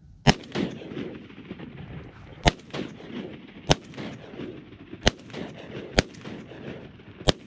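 Shotguns fired at incoming ducks: a volley of six sharp shots, unevenly spaced over about seven seconds.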